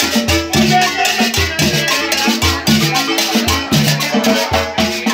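Loud Latin dance music with a steady beat: a repeating bass line under shakers and drums.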